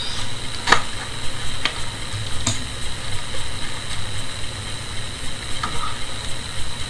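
Scissors snipping through the tape wrapping a betta fish's shipping bag, three sharp snips in the first few seconds, the first the loudest. Then fainter crinkling as the wrapping is peeled back by hand. All of it sits over a steady hiss.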